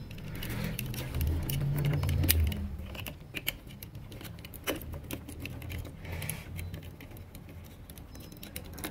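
Small plastic clicks and handling rustle as a light-switch module is pushed and snapped into a plastic wall-plate frame by hand. A low handling rumble comes in the first couple of seconds, then scattered single clicks.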